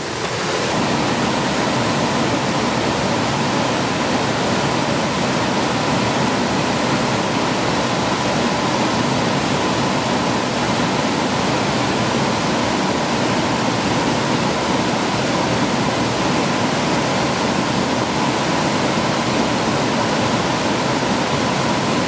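Darnley Cascade, a broad, low waterfall, spilling over a rock ledge: a steady, even rush of falling water.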